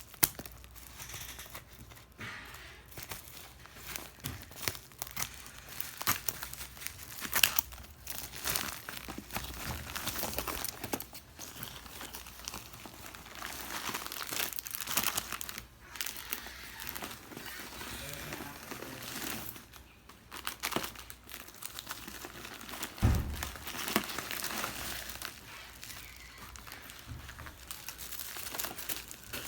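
Packaging being crinkled and handled while a parcel is unboxed: irregular rustling and crackling with sharp little crackles, and a single dull thump about three-quarters of the way through.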